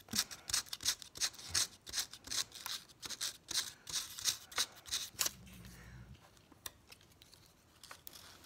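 Strip of coarse sandpaper rubbed back and forth on a metal lock pick, scuffing the metal so glue will hold: quick rasping strokes, about three a second, that stop about five seconds in.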